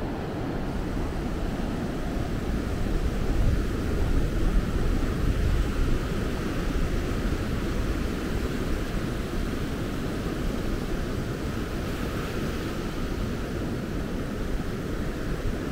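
Sea surf breaking and washing up a sandy beach, a steady rushing wash, with wind buffeting the microphone in a low rumble that swells for a few seconds early in the stretch.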